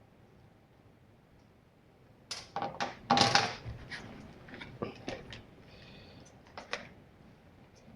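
Small hand tools and metal engine parts being handled on a workbench: a run of sharp clicks and clatter starting about two seconds in, loudest as a short rattle a second later, then scattered clicks.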